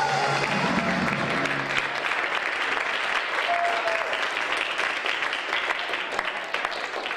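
Audience applauding at the end of a song, over the last held chord of the music, which ends about two seconds in.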